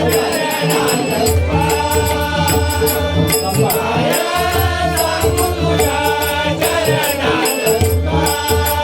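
Marathi devotional abhang being sung, voices in chorus, over a steady drone, with a drum and small jingling hand cymbals keeping a steady beat.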